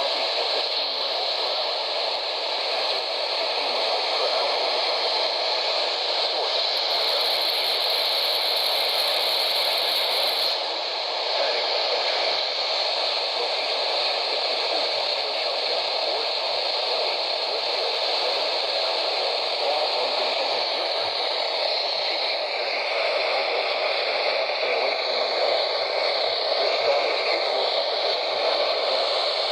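Radio receiver hissing with static on an otherwise silent channel, a steady, even hiss. An extra higher-pitched hiss joins for about three seconds, starting some seven seconds in.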